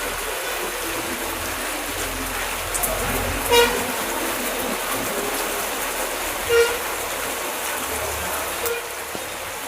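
Steady heavy rain with two short vehicle horn toots, about three and a half seconds apart.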